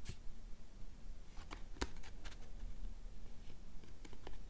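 A printed paper leaflet being handled and turned over in the hand, giving a few scattered soft crackles and clicks of paper over a faint low hum.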